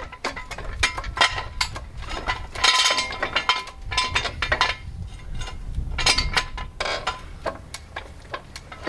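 Red Craftsman hydraulic floor jack being pumped by its long steel handle, raising the Jeep's front axle: a run of irregular metallic clicks and clanks from the handle and jack mechanism, some with a brief metallic ring.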